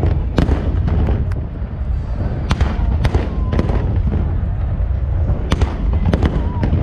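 Fireworks display: a string of sharp bangs from shells bursting, irregularly spaced and sometimes two or three close together, over a continuous deep rumble.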